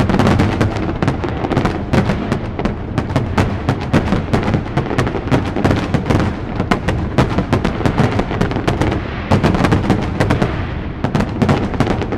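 Aerial fireworks display: a dense, unbroken barrage of shell bursts, several sharp bangs a second over a rolling low rumble.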